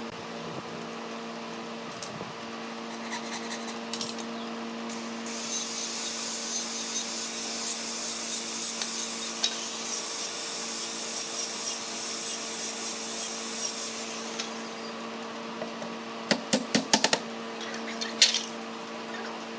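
Woodworking on kitchen cabinetry: a rasping, rubbing noise with rhythmic strokes for about nine seconds, then a quick run of sharp knocks near the end, over a steady hum.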